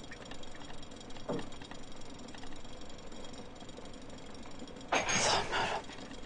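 Quiet room tone, broken about five seconds in by a woman's short breathy exhale, a sigh lasting under a second.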